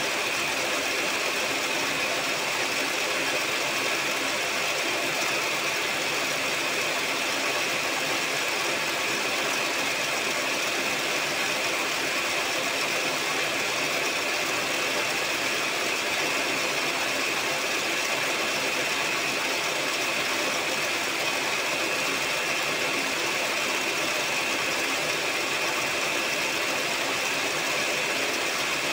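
Electric hand mixer running steadily at one speed, its beaters whipping eggs and sugar in a bowl, with an even whir that has a high edge to it.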